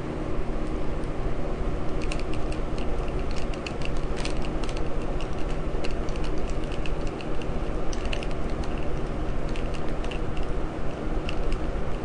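Light, irregular clicking and ticking of a star (Torx) screwdriver driving screws into a Dell Inspiron 1525 laptop to fasten the keyboard down, starting about two seconds in, over a steady low hum.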